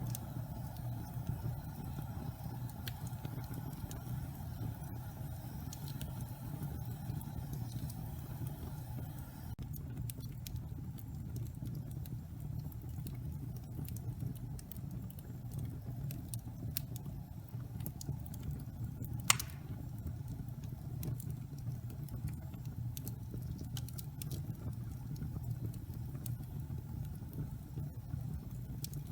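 Wood fire burning in a fireplace: scattered crackles and ticks over a steady low rumble, with one sharp, loud pop about nineteen seconds in.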